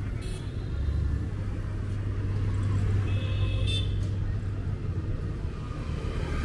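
Steady low rumble of city road traffic, with a brief high-pitched sound a little after three seconds in.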